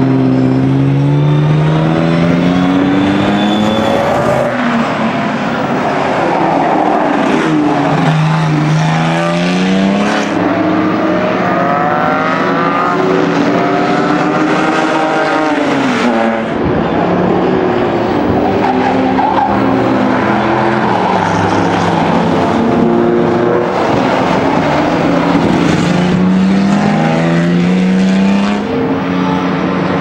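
Jaguar E-type race car's straight-six engine under hard acceleration, its note rising through each gear with short breaks at the upshifts and falling back on lifts and downshifts as the car laps.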